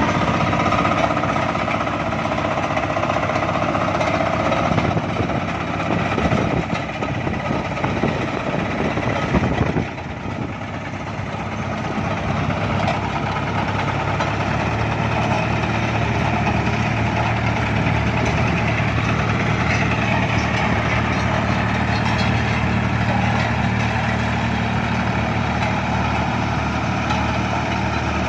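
Hydraulic vibratory asphalt road roller's engine running. It is uneven for the first ten seconds, dips about ten seconds in, then settles into a steady hum.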